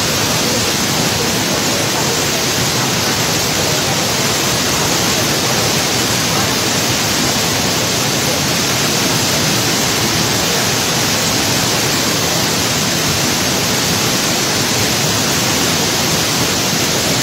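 Five Falls waterfall, its several cascades pouring in heavy flow: a loud, steady rush of falling water that does not let up.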